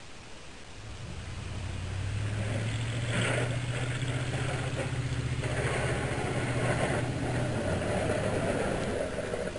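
A 1997 Chevrolet 2500 pickup fitted with a Boss straight snowplow blade drives in with its engine running steadily, growing louder as it approaches. Rushing, scraping noise comes in twice as the blade pushes snow.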